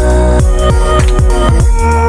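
Background electronic dance music with a heavy bass and a steady beat.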